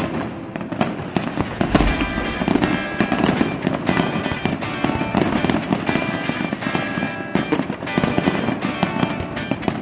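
Fireworks bursting and crackling in quick succession, with a deep boom about two seconds in, heard over background music.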